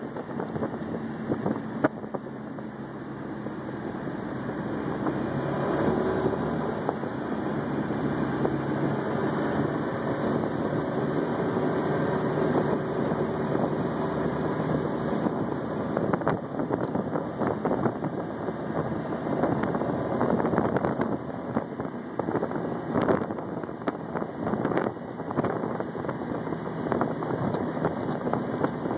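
Small three-wheeled tour car's engine running as it drives along, its pitch shifting and its level rising a few seconds in, with wind buffeting the microphone throughout.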